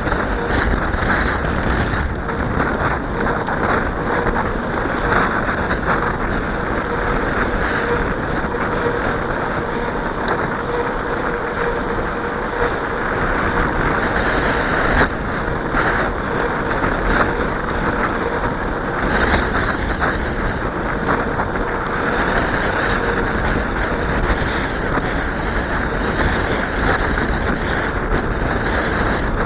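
Steady wind noise buffeting the microphone of a camera riding along on a moving bicycle, with a faint steady hum underneath.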